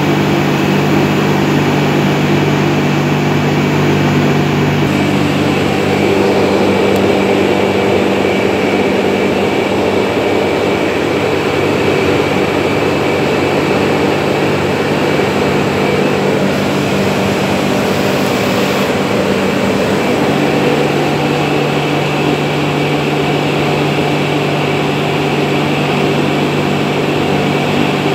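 A high-pressure washer's motor and pump running steadily under a steady hiss of water spray. Its hum changes about five seconds in and again about twenty seconds in.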